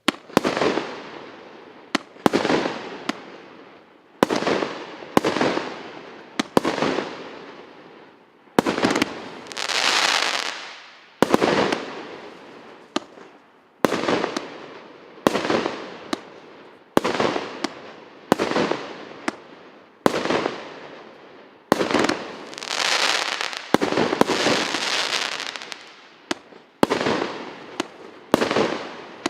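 A 36-shot, 1.25-inch consumer firework battery (cake) firing shot after shot, a sharp bang roughly every second and a half, each followed by a crackling burst that fades. Around ten seconds in and again from about 22 to 26 seconds the crackle runs longer and louder.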